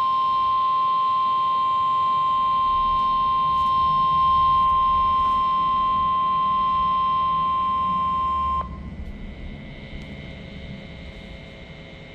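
NOAA Weather Radio 1050 Hz warning alarm tone, sent as the weekly test of the alert system. It is one steady, loud pure tone held for about eight and a half seconds and then cut off abruptly, leaving faint radio hiss.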